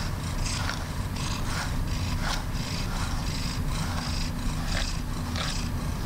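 Long-haired cat purring steadily in contentment while a pet brush is pulled through its fur in short scratchy strokes, about two a second.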